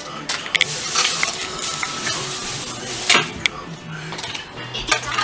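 Rustling with scattered light clicks and clatter of small hard objects, like things being handled and shifted about.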